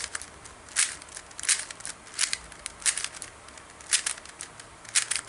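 Rubik's magnetic speedcube being turned by hand to test corner cutting, its plastic layers clicking and clacking in short clusters, roughly one cluster a second.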